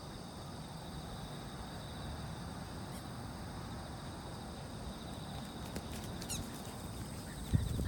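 Steady high-pitched insect chorus over a low rumble, with a louder noise starting just before the end.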